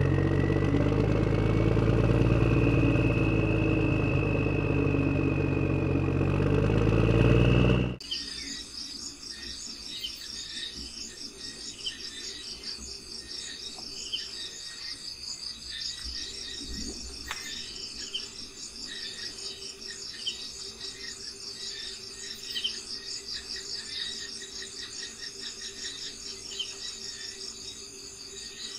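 An engine runs steadily for about eight seconds and cuts off suddenly. After that come outdoor insects, crickets, with a steady pulsing trill and scattered bird chirps.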